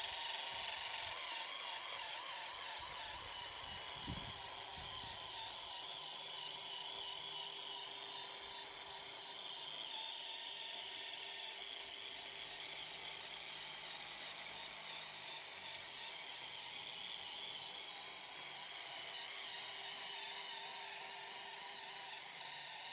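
G-scale LGB model locomotives running along garden-railway track, their motors and gears giving a steady whir that wavers in pitch. There is a brief low rumble about four seconds in.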